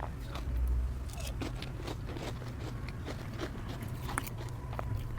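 Close-miked chewing and crunching of ice dusted with matcha powder, with scattered crisp crunches. A low steady hum runs underneath.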